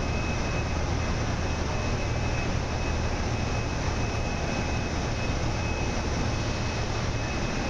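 Steady machinery drone: a low rumble under even noise, with a faint constant high-pitched whine running through it.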